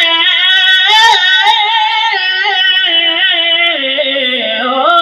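A man singing a naat solo in Punjabi, amplified over a PA, drawing out long held notes whose pitch wavers and slides.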